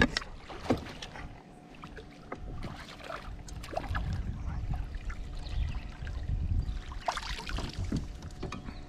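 Scattered light knocks and clicks aboard a fishing kayak, over a low rumble.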